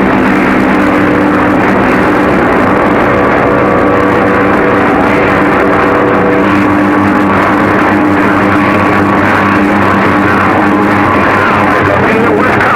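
Music with held chord-like tones, transmitted over a CB radio channel and heard through the radio, thin and band-limited with a heavy hiss; the held notes shift to a new chord about halfway through.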